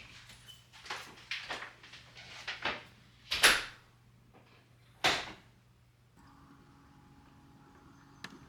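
A run of small knocks and clatters, then two louder sharp bangs around the middle, like a cupboard or door being shut. A steady low hum begins about six seconds in.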